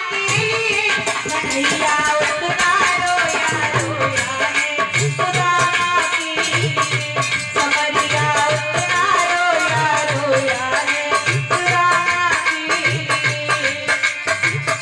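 Indian devotional folk music: a melody line over a steady repeating drum beat and rattling hand percussion.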